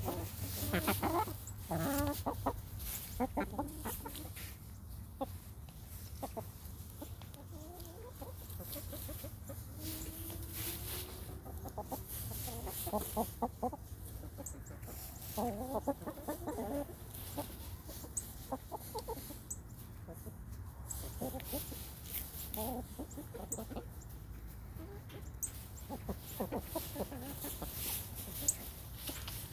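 A flock of chickens clucking in short, scattered bursts as they forage, with frequent small clicks and rustles of scratching and pecking in straw.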